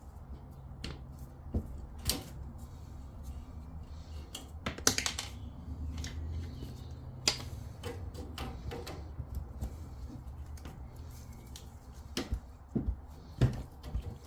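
Irregular metallic clicks and knocks of a tool working a compression olive off a plumbing pipe end, over a steady low hum.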